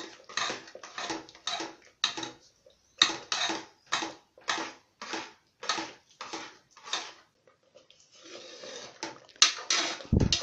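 A steel ladle stirs rava (semolina) into boiling water in a pressure cooker, scraping the pot in even strokes about twice a second; the steady stirring keeps the semolina from forming lumps. The strokes stop briefly about two-thirds of the way through, then start again, with a dull knock just before the end.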